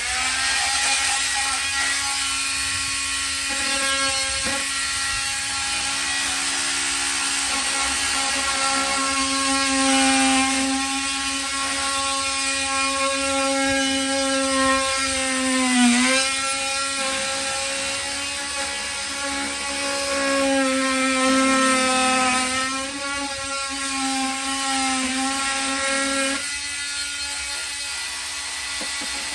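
Oscillating multi-tool running and cutting into wood siding along a marked line, a steady high motor whine whose pitch sags for a moment as the blade bites, most deeply about halfway through.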